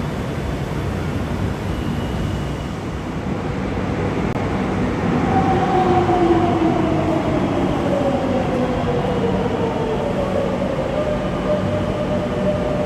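Madrid Metro train running into a station over a steady rumble. About five seconds in, its motor whine glides down in pitch as it brakes, then levels off.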